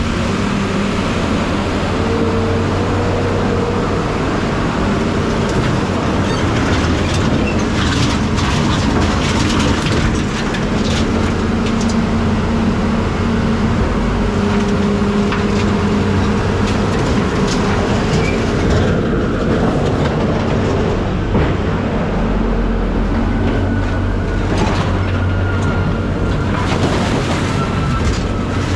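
A heavy vehicle on the move: steady engine and road rumble whose low hum shifts in pitch now and then, with loose rattling and clanking throughout.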